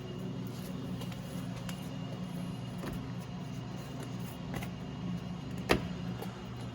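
A steady low hum with a few faint clicks, and one sharp click near the end.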